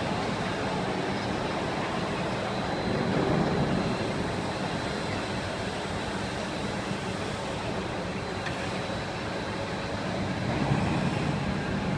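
Double-sided PE extrusion laminating machine with a single extruder running: a steady mechanical rumble with a low hum and a faint high whine.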